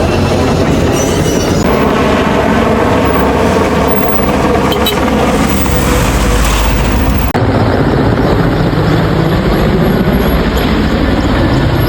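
Loud, steady engine noise, with an abrupt change about seven seconds in.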